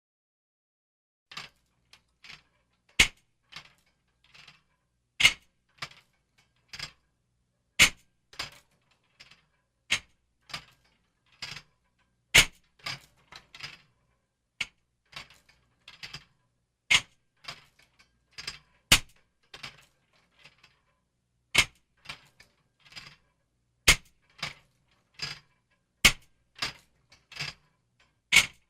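A run of separate punch and body-hit impact sound effects, irregularly spaced, roughly one or two a second. Soft thuds alternate with a few loud, sharp cracks.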